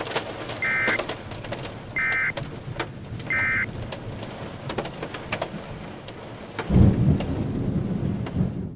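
Three short, evenly spaced digital data bursts of an Emergency Alert System end-of-message signal, marking the end of the warning broadcast, over steady rain and crackling thunder. About seven seconds in, a loud rumble of thunder, the loudest sound, breaks in, and then everything cuts off suddenly.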